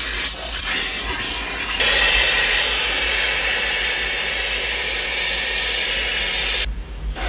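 Car-wash vacuum hose sucking air through a crevice nozzle as it works over a car's floor: a steady rushing hiss that grows louder about two seconds in and dips briefly near the end.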